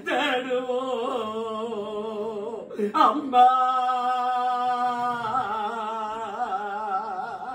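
A single voice sings a Tamil lament (oppari) in long, wavering held notes, with a short break about three seconds in.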